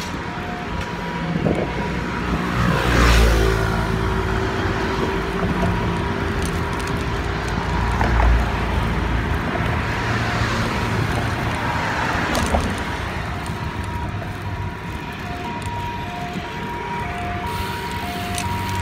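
Road traffic: a steady rumble with vehicles swelling past about three, eight and twelve seconds in, and light background music with a simple melody.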